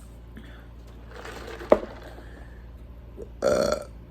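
A woman burps once, a short pitched burp of about half a second near the end. A sharp click comes a little before halfway through.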